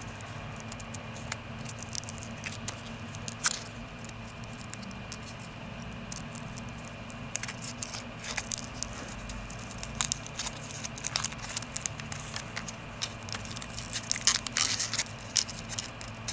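Foil wrapper of a chocolate surprise egg being peeled off by hand: faint, scattered crinkles and small crackles, busier near the end.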